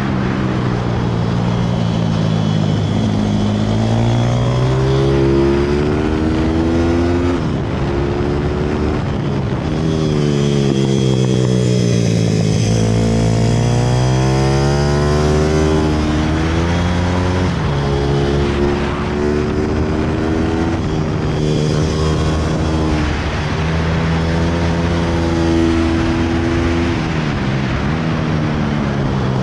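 Pit bike engine running hard on a lap, its pitch climbing in steps through the gear changes. The pitch falls as the bike slows for a corner about halfway through, then rises again through more upshifts as it accelerates out.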